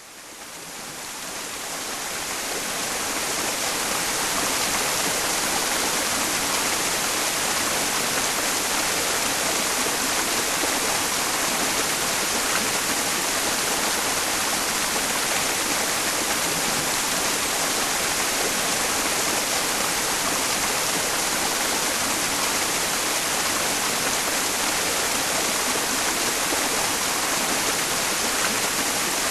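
Mountain stream running, blended with steady white noise, a bright, hissy wash heaviest in the treble. It fades in over the first few seconds and then holds even.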